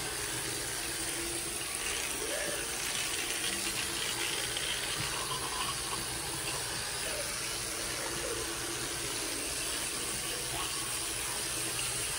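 Water running steadily from a bathroom sink tap.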